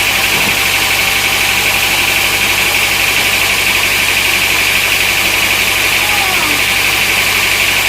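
Sawmill machinery running steadily: an engine with a regular low beat under a constant high-pitched hiss.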